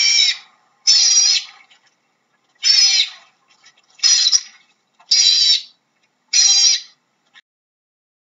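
Otter calling: six high, wavering calls, each about half a second long, a little over a second apart.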